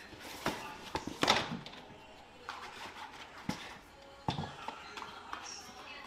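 Bottles and a cardboard box being handled while a plastic storage crate's drop-down front door is opened: a series of irregular knocks, clacks and clinks, loudest about a second in.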